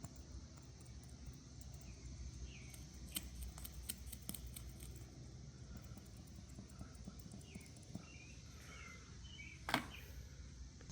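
Faint, intermittent scratching and light clicks of a small tool scraping loose glass out of a windshield chip, over a low steady background rumble, with one sharper click near the end.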